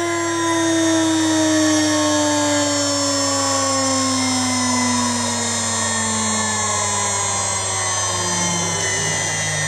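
A 2.2 kW Chinese water-cooled spindle, run from its inverter, spinning down. Its whine falls smoothly and steadily in pitch as the drive frequency ramps from about 210 Hz to about 110 Hz, roughly 12,700 down to 6,700 rpm. A steady low hum runs underneath.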